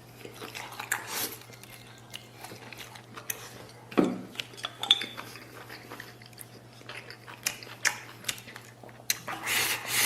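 Close-up eating sounds: a person biting and chewing braised spare ribs, wet mouth clicks and smacks, with a sharp knock about four seconds in and a denser burst of chewing near the end.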